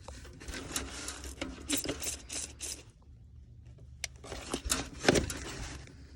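Bubble leak-detector solution sprayed from a trigger bottle onto the refrigerant fittings of a newly installed TXV: quick hissing squirts with trigger clicks, in two runs with a short pause between.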